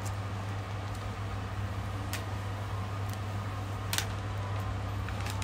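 Steady low hum, with a few light clicks and rustles from a new MacBook Air being handled in its plastic wrap. The sharpest click comes about four seconds in.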